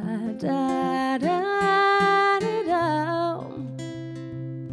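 A woman singing long held notes over a fingerpicked acoustic guitar in a slow live ballad; the voice rises to a long note about a second in, wavers, and fades out past three seconds, leaving the guitar.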